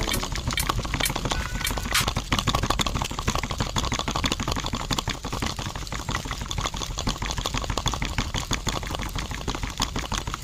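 Small electric motor of a miniature model concrete mixer running, turning the drum with a dense, fast, irregular clicking rattle over a low hum.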